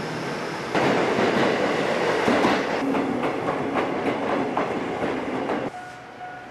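Electric commuter train on the Seibu Ikebukuro Line running past close by, a loud steady rush of wheel and running noise with repeated clacks as the wheels cross rail joints. The sound drops away suddenly near the end to a quieter steady tone.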